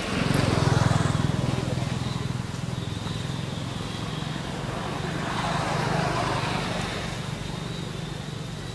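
A motor vehicle's engine humming steadily, swelling just after the start and again around six seconds in, as traffic passes.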